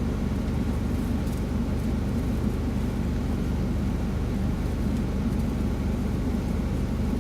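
Steady low drone of an idling semi-truck diesel engine, running evenly without change.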